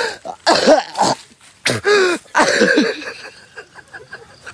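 A man coughing and clearing his throat, mixed with short strained vocal sounds, which die down after about three seconds.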